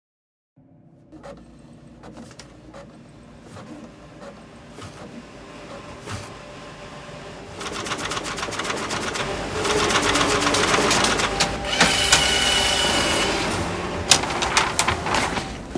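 Printer mechanism running with rapid clicking and clattering that builds steadily in loudness, with a high steady tone for about a second near the end.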